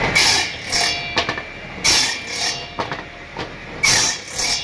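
Table saw cutting pallet-wood boards: three short bursts as the circular blade bites through the wood, about two seconds apart, with a few sharp knocks of wood between the cuts.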